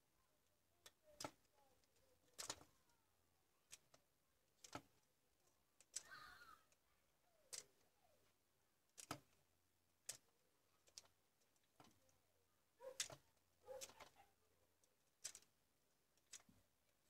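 Faint, sharp clicks at irregular spacing, roughly one a second, with a brief hiss about six seconds in, as a soldering iron tip works the solder joints on a compact fluorescent bulb's ballast circuit board.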